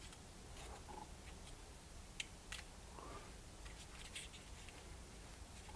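Faint crinkling and small sharp clicks of dry birch bark as fingers turn a folded bark star, the loudest click about two seconds in.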